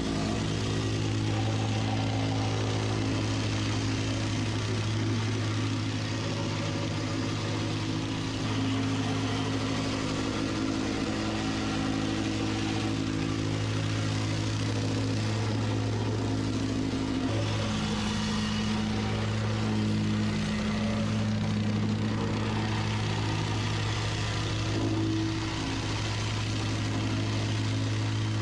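Gas-powered vibratory plate compactor running with a steady drone as it is walked over the crushed-gravel base of a sidewalk form, compacting the base before the concrete is poured.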